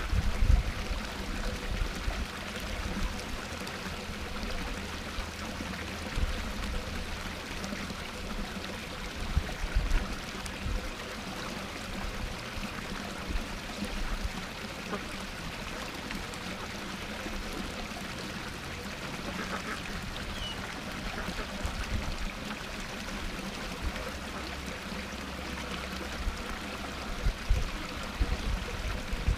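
Small garden waterfall splashing steadily into a pond, with domestic ducks quacking now and then. Occasional brief low bumps are mixed in.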